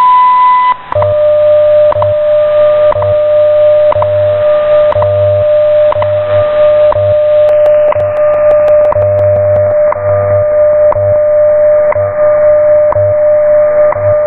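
WWV/WWVH shortwave time signal received in AM over static hiss. It opens with the 1000 Hz top-of-the-minute tone lasting under a second. A steady 600 Hz tone with a fainter 500 Hz tone beneath it follows, broken by a tick once a second. Under that runs the low 100 Hz time-code buzz, pulsing on and off.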